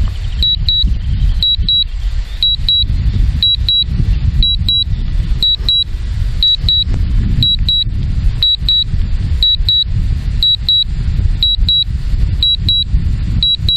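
Strong wind buffeting the microphone with a loud, uneven low rumble. Over it, the DJI Mavic Pro remote controller sounds two short high beeps about once a second, its alert while the drone flies back under automatic return-to-home.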